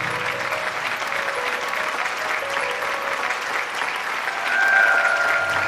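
Crowd applauding steadily over background music, with a held note coming in near the end.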